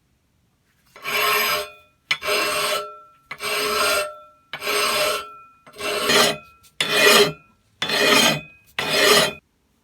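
Hand file rasping across metal in eight even push strokes, about one a second, with a faint ring from the metal under the strokes.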